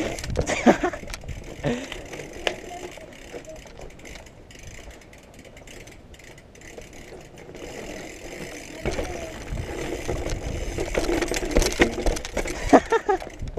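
BMX bike ridden over bare rock and loose gravel: the tyres crunch and the frame and chain rattle and knock over the bumps. Wind on the head-mounted microphone rumbles louder from about two-thirds of the way through.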